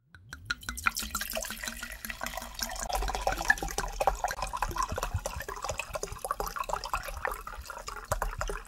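Red wine poured from a bottle into a glass measuring jug, splashing steadily as the jug fills; the pour starts a fraction of a second in.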